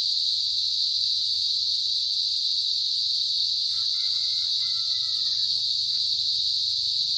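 A chorus of cicadas droning continuously in a steady, high-pitched, unbroken buzz.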